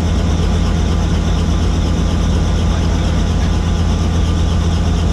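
Helicopter in flight: the loud, steady drone of its engine and rotor, with a deep hum underneath.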